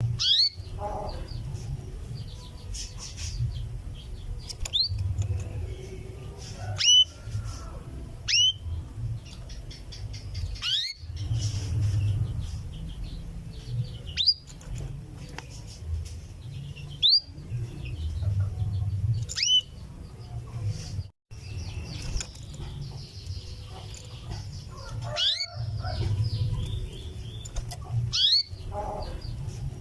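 Female canary giving short, sharply rising 'cuwit' calls, one every two or three seconds: the call a hen canary uses to summon a male. A steady low rumble runs underneath.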